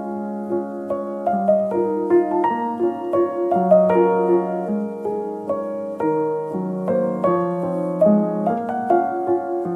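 Background piano music: a steady melody of held notes and chords, with the notes changing every half second or so.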